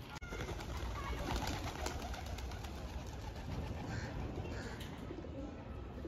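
Domestic pigeons cooing.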